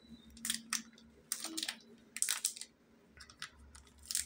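A thin plastic protective wrapper being peeled and unwrapped from a new smartphone by hand. It crinkles in a string of short, crackly rustles, louder in the first half and fainter toward the end, over a faint steady hum.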